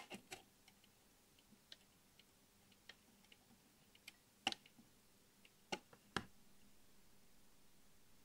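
Soldering iron tip held on a metal turret lug: faint, scattered sharp clicks and ticks over near silence, with three louder clicks between about four and a half and six seconds in.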